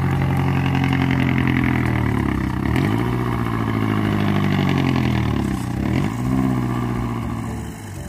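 Engine of a small cab-over pickup truck driving slowly over rough field ground, its pitch dipping and picking up again twice, about two and a half and six seconds in, then easing off near the end.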